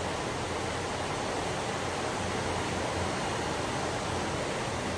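Steady rain: an even, unbroken hiss with no single drops or knocks standing out.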